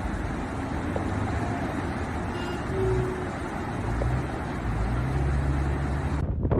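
Motor vehicles running over a steady rushing noise, with a low engine hum. Near the end the sound cuts abruptly to gusty wind buffeting the microphone.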